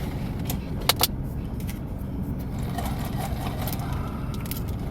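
A steady low background rumble, with two sharp clicks in quick succession about a second in.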